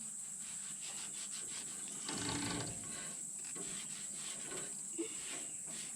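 Faint rubbing and handling sounds from the sawmill's band-saw blade being worked onto its wheels and lined up, a little louder about two seconds in, over a steady high hiss.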